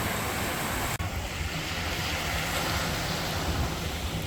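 Ocean surf washing on a beach, with wind buffeting the microphone in a low rumble. The sound breaks off sharply about a second in, then carries on the same.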